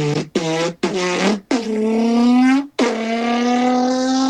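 A man's voice imitating a car engine accelerating. Three quick revving blips, then two long pulls that each rise slowly in pitch. The short break between the pulls and the drop in pitch mimic a gear change.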